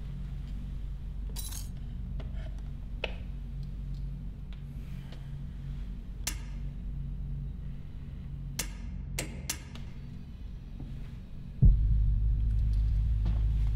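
A steady low hum with a handful of sharp clinks scattered over several seconds. Near the end a sudden deep boom hits and opens into a loud, steady low drone.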